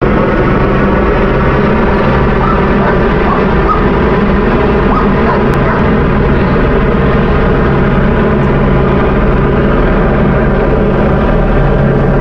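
Police helicopter circling overhead, its rotor making a loud, steady, unbroken thrum.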